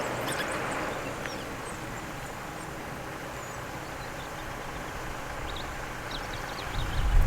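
African wild dog pack twittering: high squeaky calls fade out in the first second, then a few faint, short, high chirps follow later. Near the end a low rumble comes up under them.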